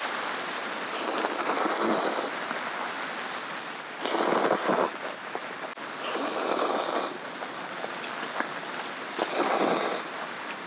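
A person slurping ramen noodles close to a clip-on microphone: four long, airy slurps, each about a second, a couple of seconds apart.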